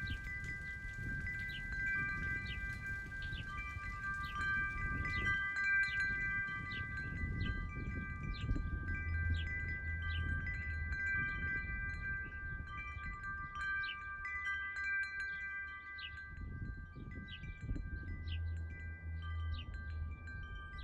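Chimes ringing: several long, steady high tones with frequent light strikes, over a low rumble.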